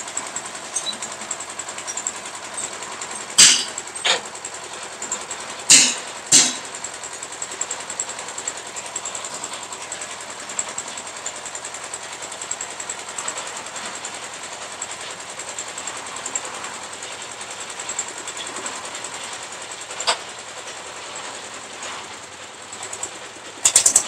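Lift concrete mixer machine running steadily while its hoist carries a rider up the mast, with a handful of sharp knocks: two pairs in the first seven seconds, one around twenty seconds in, and a quick cluster near the end.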